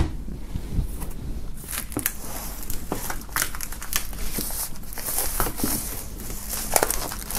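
Clear plastic shrink-wrap film being pulled and peeled off a cardboard box by hand, crinkling and crackling irregularly.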